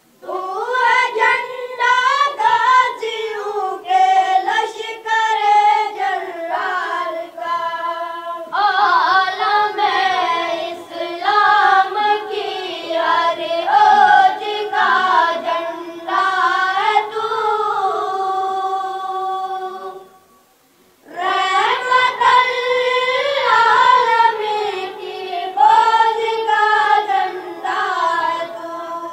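Unaccompanied high-pitched voice singing an Urdu devotional song in long, ornamented phrases, breaking off briefly about twenty seconds in.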